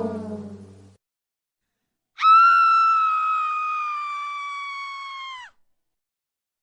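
A falling brass-like tone fades out in the first second. After a short silence comes one long, high-pitched scream, held about three seconds with its pitch sagging slightly, that cuts off suddenly.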